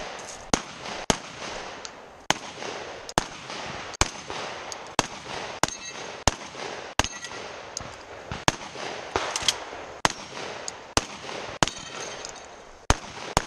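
Rapid gunfire from a long gun at a 3-Gun stage: about twenty shots, spaced irregularly half a second to a second apart, with steel targets ringing between the shots.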